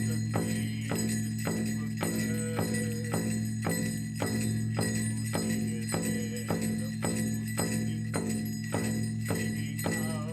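Music with a steady, even drumbeat of a little under two strokes a second over sustained held tones, with a jingling shimmer.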